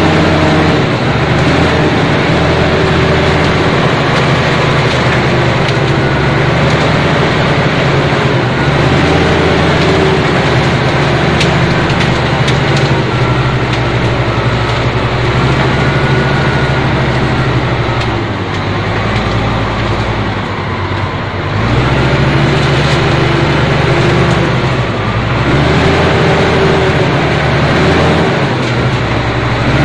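Crawler bulldozer's diesel engine running loud, heard close from the operator's seat. Its pitch and loudness drop for a few seconds about two-thirds of the way through, then rise again.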